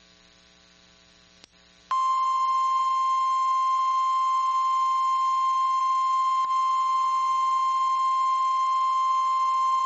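A near-silent pause, then about two seconds in the NOAA Weather Radio warning alarm tone starts: a single steady, loud, high beep that holds on. It signals that a warning message is about to be broadcast.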